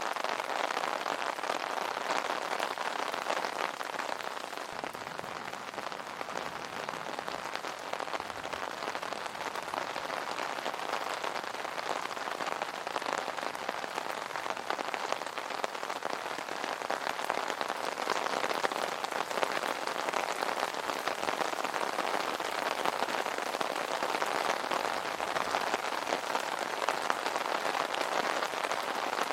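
Steady rain falling on an umbrella canopy: a dense, even hiss of many small drop hits.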